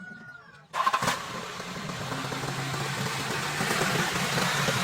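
A car engine starts up suddenly under a second in and then runs steadily, a low even hum under a lot of hiss.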